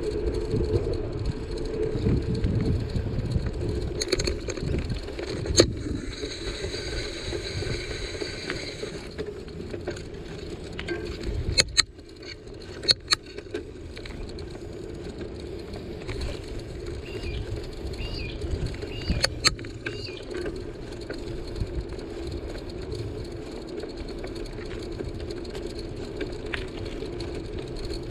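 Bicycle rolling along a paved street: steady tyre and wind rumble, with a few sharp clicks and rattles from the bike over bumps.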